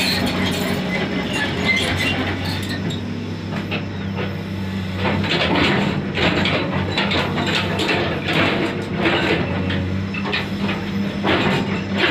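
Komatsu PC210 hydraulic excavator's diesel engine running steadily under load, with repeated clanks and crunches of rock from about five seconds in as its steel bucket works and breaks the stony ground.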